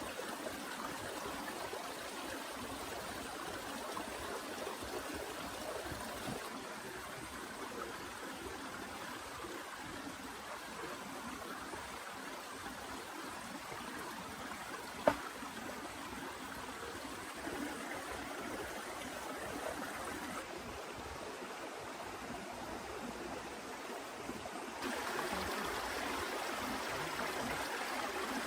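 Steady rushing water, with one sharp click about halfway through; the water gets louder near the end.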